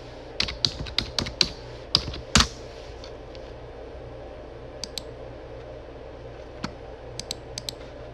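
A run of short, sharp clicks and taps: a quick cluster in the first second and a half, then two louder ones about two seconds in, the second with a dull thud, and a few fainter ticks later on. A steady low hum sits under them.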